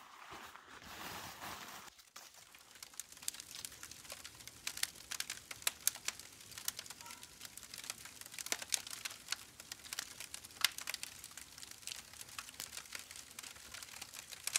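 Nylon tent rainfly rustling as it is thrown over the tent, then, from about two seconds in, a small wood campfire crackling with irregular sharp pops.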